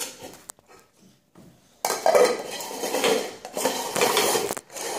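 Pet food bowls being knocked and slid about on a tile floor: a few light knocks, then from about two seconds in a stretch of continuous scraping and clattering.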